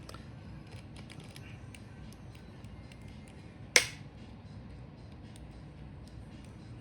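Small clicks and taps from handling repair tools and the phone on a workbench, with one sharp click a little under four seconds in.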